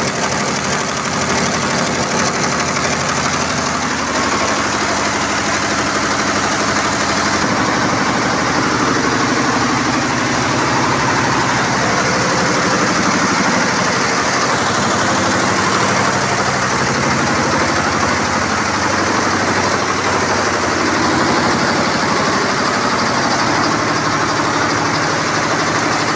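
A Great 42-head, 4-colour multi-head embroidery machine running steadily, its needle heads stitching in a fast, even rhythm.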